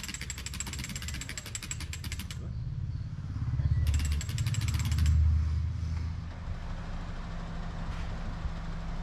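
Machinery running: a fast, even rattle that cuts off about two seconds in and comes back briefly around four seconds, over a low engine rumble that swells in the middle and then settles into a steady hum.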